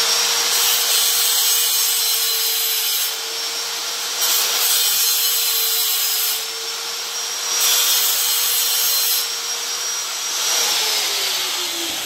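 Hand-held electric angle grinder running at a steady speed while it grinds a small steel part of a door-latch assembly, cleaning up one of its ears. The grinding noise comes and goes in short passes. The motor tone drops away as the grinder spins down about ten seconds in.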